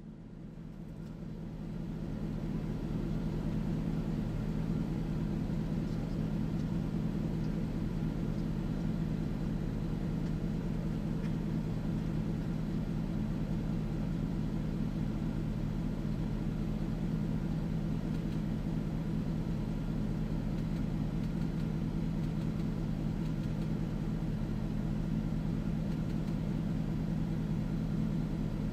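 A vehicle engine idling with a steady low hum, fading in over the first couple of seconds.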